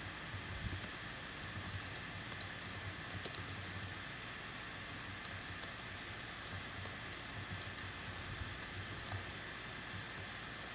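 Steady hiss and low hum of a running electric pedestal fan, with scattered faint clicks and ticks in irregular clusters.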